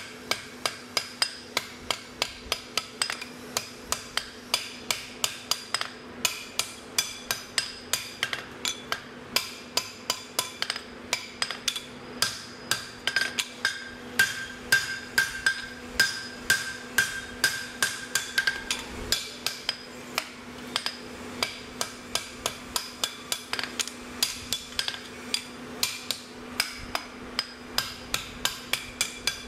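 Hammer blows forging a red-hot steel knife blank on an anvil, a steady run of about three strikes a second, each with a bright metallic ring that carries between the blows.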